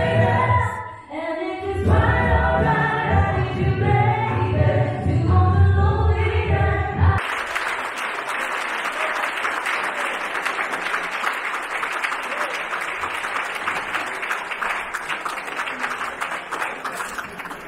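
Singing with a heavy bass, played through a PA system, that cuts off about seven seconds in; a seated audience then applauds steadily.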